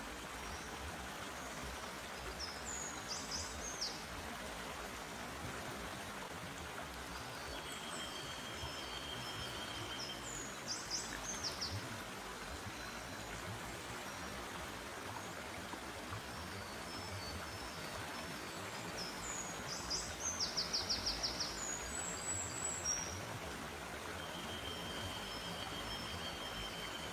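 Forest stream flowing steadily, with birds calling over it in short bursts of high, quick notes a few times, and a thin, steady high trill heard twice.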